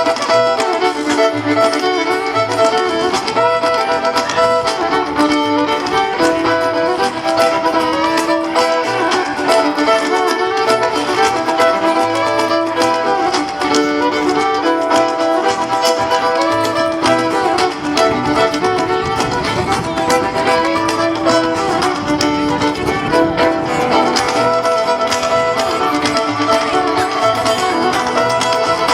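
Live string-band music: an instrumental passage led by a bowed fiddle over a steady low bass line, with no singing.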